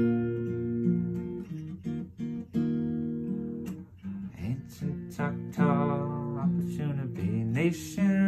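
Acoustic guitar with a capo, strummed chords ringing on between strokes. About two-thirds of the way through, a man's voice comes in, singing over the guitar.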